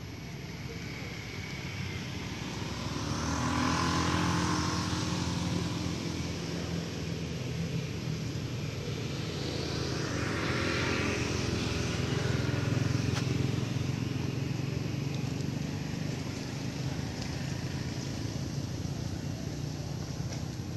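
Low motor-vehicle engine hum that swells twice, about four seconds in and again around ten to thirteen seconds in.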